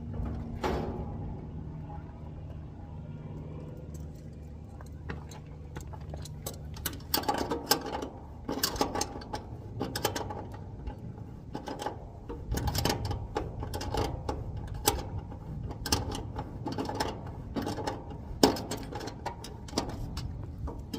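Bursts of rapid mechanical clattering and sharp clicks in irregular clusters over a low steady hum, starting a few seconds in.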